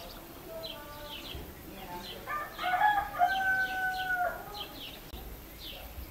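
A rooster crows once, a long call that ends on a held note and then drops. Small birds chirp throughout.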